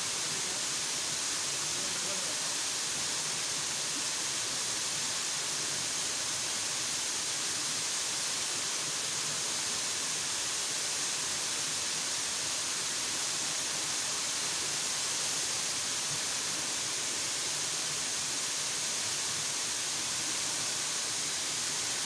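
Waterfall pouring down a rock face into a pool: a steady, hissing rush of water.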